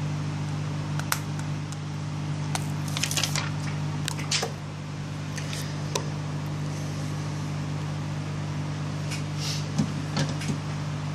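Hot-air rework gun (heat gun) running, its blower giving a steady hum and rush of air, with a few light clicks and taps from handling the phone.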